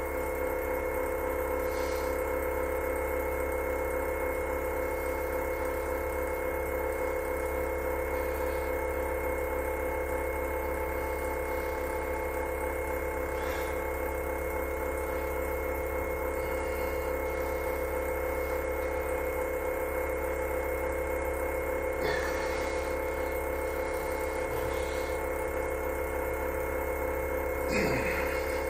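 Steady electrical hum made of several constant tones with a faint regular pulse. A short falling sweep comes near the end.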